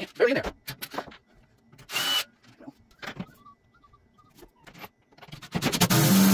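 Cordless drill running in short bursts as it drives screws into a metal wall bracket: a brief run about two seconds in and a longer, louder run of just over a second near the end. In between are clicks and knocks from handling the metal bracket.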